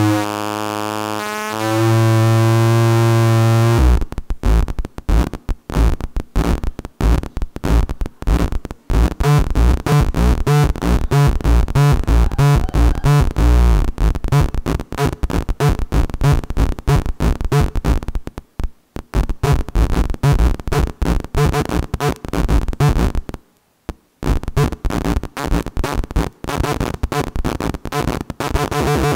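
Electronic tones from a photoresistor-controlled sound circuit reacting to screen brightness. It holds a steady pitched tone for the first few seconds. About four seconds in it breaks into a rapid stuttering train of pulses, which cuts out briefly twice.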